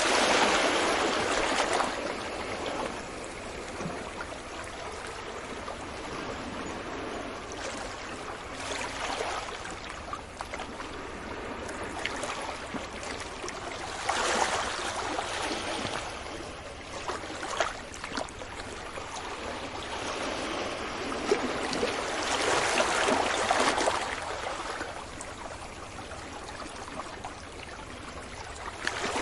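Ocean waves washing onto a beach. Louder surges come at the start, about halfway and again past two-thirds, with a softer hiss and crackle of water between them.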